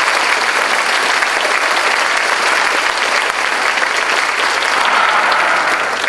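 Theatre audience applauding steadily at the end of a choral song, a dense, loud clapping that begins to fade near the end.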